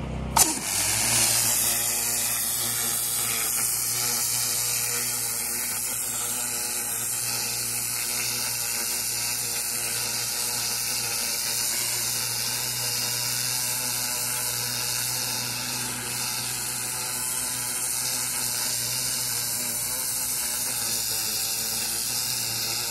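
Pressure washer's turbo nozzle spraying a high-pressure jet onto paver joints to blast weeds out of the cracks, a steady hiss over the hum of the running pressure washer. The spray starts about half a second in and holds steady.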